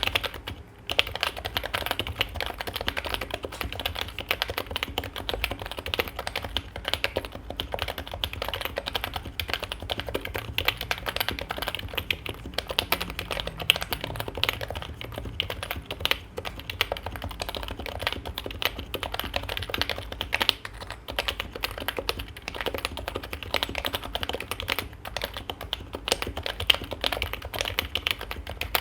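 Continuous typing on a Topre keyboard (Norbauer Heavy Grail, OEM Topre switches with 45 g domes) fitted with Sho aluminium keycaps: a dense, irregular run of key strokes. The keys give a strong metallic ping on the upstroke, and near the board's edges a ping on the downstroke as the metal cap hits the plate, which the owner thinks foam dampening and lube or silencing rings would cure.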